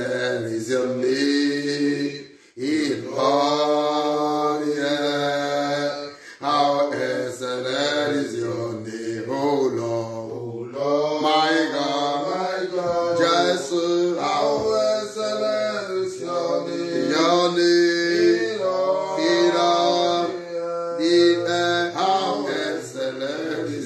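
A man's voice chanting in sustained, wordless worship phrases that glide up and down, with short breaks in between, over a steady low hum.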